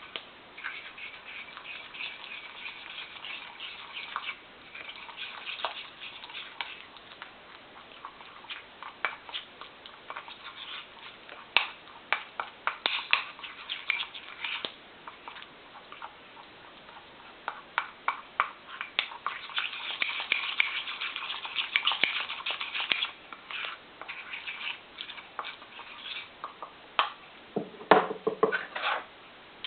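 A utensil clicking and scraping against a bowl, irregularly, as sweet rice flour and water are stirred into a dough, with a few heavier knocks near the end.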